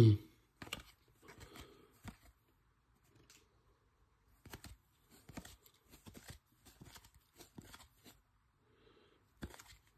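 Glossy basketball trading cards flipped one at a time from a hand-held stack: faint, irregular clicks and slides of card against card, some in short clusters.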